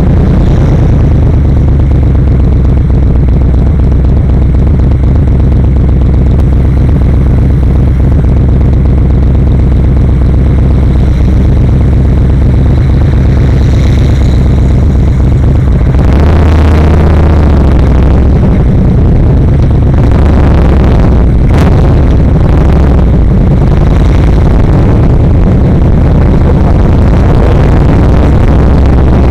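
Yamaha XVS1300 V-twin motorcycle engine running steadily on the move, with a steady rush of noise over it. About halfway through the engine note drops and the rush grows louder.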